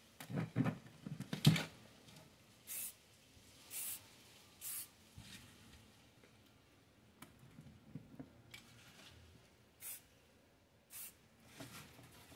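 Handling rustle and knocks from a mesh stencil and an aerosol spray paint can near the start, then a handful of short, separate hisses of the spray can, each about a third of a second long.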